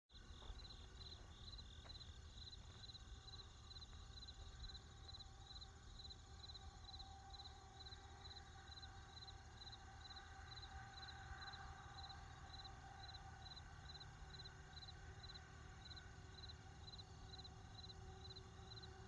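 Near-silent room tone: a low steady hum with a faint high chirp repeating evenly, about two and a half times a second.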